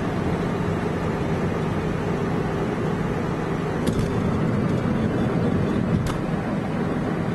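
Steady road and engine noise inside a moving car's cabin, with two brief faint clicks about four and six seconds in.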